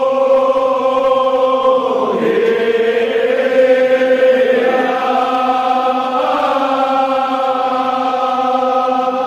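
Male voices chanting a Kashmiri marsiya, a Shia elegy, in long drawn-out held notes, with a dip in pitch about two seconds in.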